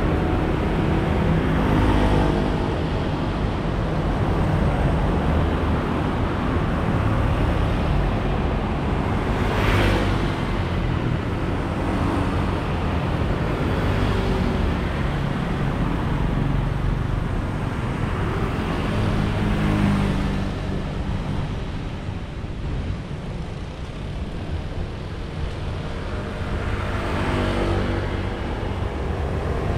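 Busy city road traffic, mostly motor scooters with a few cars, running as a steady stream of engine and tyre noise. Several single vehicles swell up and fade as they pass close, with a short lull a little past the middle.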